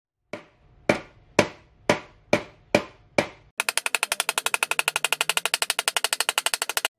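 Claw hammer striking the teeth of a steel handsaw blade: seven single blows, each ringing briefly, then about halfway through a rapid run of light taps, about twelve a second, that stops just before the end.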